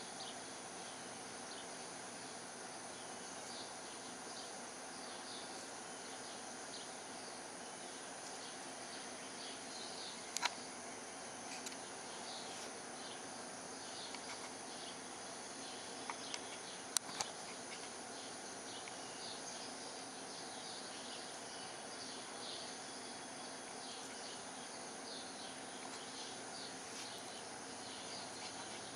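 Steady outdoor insect chorus: many short chirps over a continuous high buzz, with a few sharp clicks about ten and seventeen seconds in.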